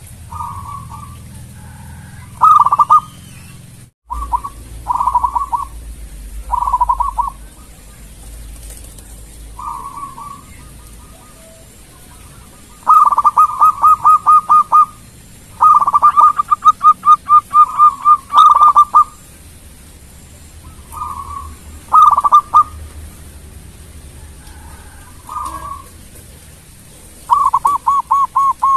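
Zebra dove (perkutut) singing: repeated bouts of quick, rolling staccato coos, with the longest and loudest runs in the middle. The sound breaks off briefly about four seconds in.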